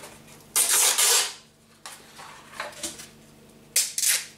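100-grit sandpaper scraping in short strokes: one longer stroke about half a second in, a few faint ones, then two quick strokes near the end.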